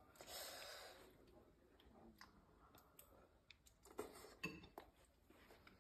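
Near silence, with a brief soft hiss near the start and a few faint clicks of a metal fork against a bowl of pasta, most of them around four seconds in, as pasta is picked up to taste.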